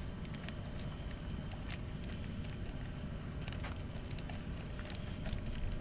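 A spoon stirring in a cup, making light, irregular clicks against it, over a steady low rumble.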